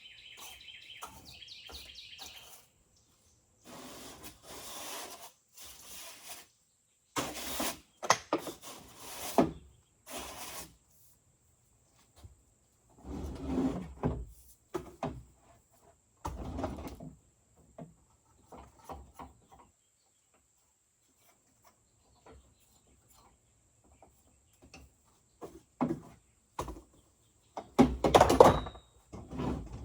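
Scattered clatter and knocks of a broken jigsaw and its parts being handled and set down, the loudest knock near the end. A short run of high, quick bird chirps at the start.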